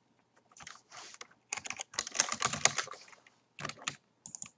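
Typing on a computer keyboard: bursts of quick keystrokes with short pauses between them, the longest and densest run in the middle.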